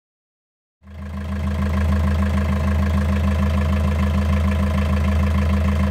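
Yanmar 4JH4AE four-cylinder marine diesel engine idling steadily at about 900 rpm, cutting in abruptly about a second in.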